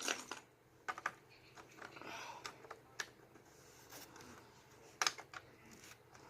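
Lego bricks being pressed onto a build and handled: scattered small plastic clicks at irregular intervals, with a quick cluster of clicks near the end.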